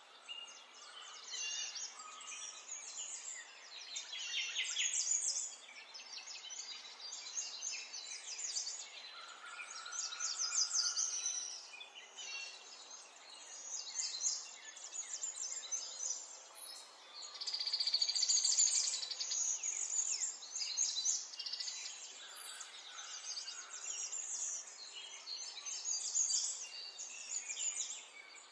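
High-pitched animal chirping and squeaking, in rapid trills that come and go, with a few short higher-pitched calls in between.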